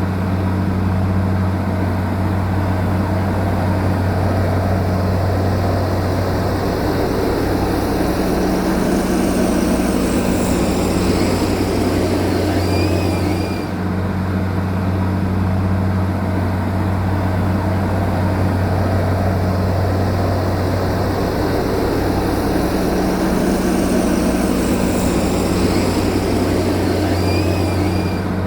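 Heavy diesel engine of earth-moving machinery running steadily under load, a constant low hum with a noisy rumble above it.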